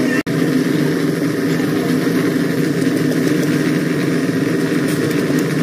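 An engine running steadily at an even speed, with no change in pitch. It cuts out for an instant about a quarter second in.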